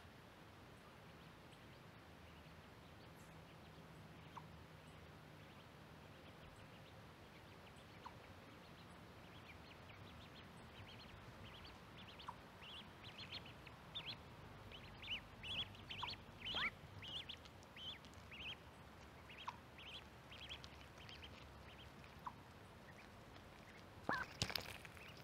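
Mallard ducklings peeping in many short, high calls, starting about a third of the way in. Near the end come a few loud, sharp clicks as the mallard hen pecks at corn right beside the microphone.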